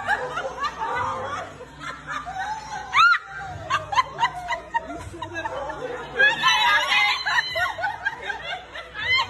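A person laughing hard in fits of high giggles and snickers, with a sharp rising squeal about three seconds in.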